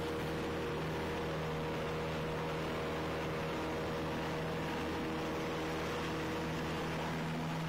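Cessna Skyhawk's piston engine and propeller running steadily at takeoff power during the takeoff roll, heard from inside the cabin.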